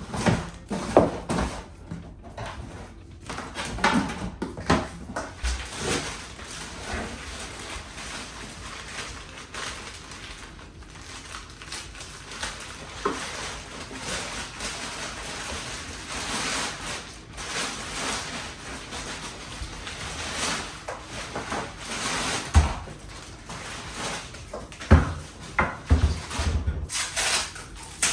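Air fryer and its packaging being unpacked and handled: continual rustling of wrapping with irregular knocks and clatters of parts being set down, several louder knocks in the second half.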